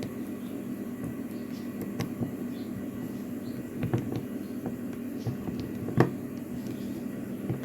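A few light clicks and knocks of a metal padlock and hand tools being handled, the loudest about six seconds in, over a steady low hum.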